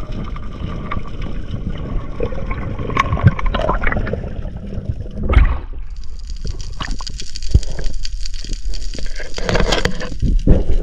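Water heard through a diving camera: a steady underwater hiss with scattered clicks, then, about halfway, a whoosh as the camera breaks the surface and water sloshes and splashes around it.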